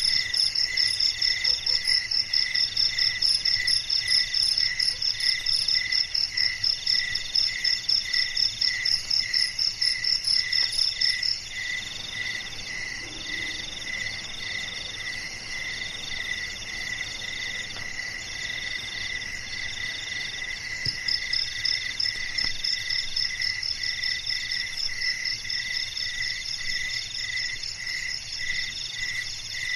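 Night chorus of crickets and other calling insects, several rhythmic trills and chirps overlapping. A loud, fast high trill drops out about a third of the way through and comes back about two-thirds in, over a lower chirp repeating about twice a second.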